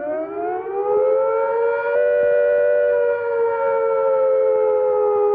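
Civil-defence air attack warning siren winding up to a high, held pitch, then slowly starting to fall. It is the signal to take cover at once.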